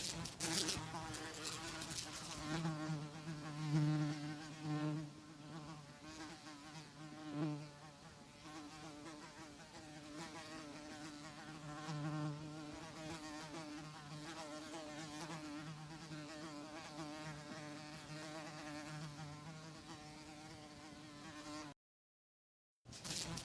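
Housefly buzzing in flight: a wavering wing-beat hum that swells louder several times as it comes close and drifts off again. It cuts to silence for about a second near the end, then resumes.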